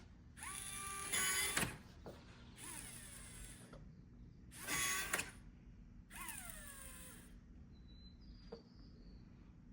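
Lockin Veno smart lock's motor driving the deadbolt back and forth during its calibration: four short motor runs about a second apart, the third the loudest and the last falling in pitch as it winds down.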